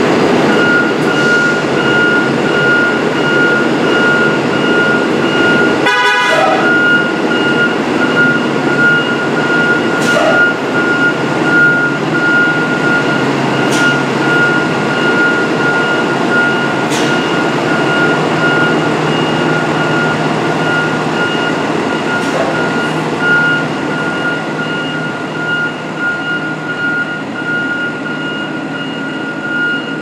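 2018 Blue Bird All-American T3 front-engine school bus reversing, its engine running under a high, steady reverse-alarm beeping that starts about half a second in. A short burst of noise comes about six seconds in.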